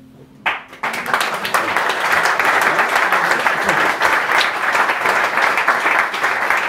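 Audience applauding after an acoustic guitar piece: the guitar's last note fades, and clapping breaks out about half a second in and then holds steady.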